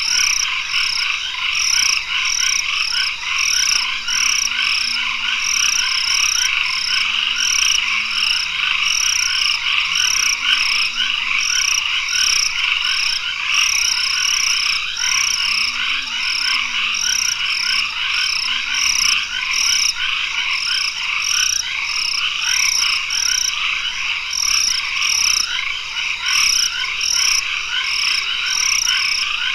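Tropical forest dusk chorus of frogs calling densely and steadily, with a high pulsing call repeating about twice a second and a few faint low rising-and-falling calls in the background.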